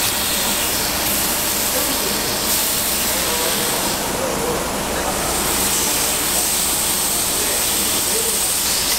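Raw pork belly and marinated pork sizzling steadily on a hot griddle.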